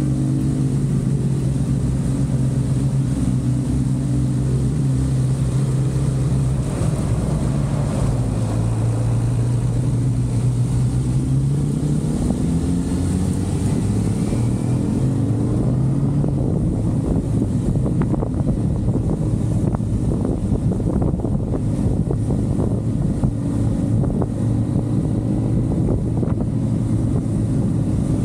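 Honda CBR500R parallel-twin engine running while riding, its note steady with a slight dip and rise in pitch. Wind noise on the microphone takes over in the second half.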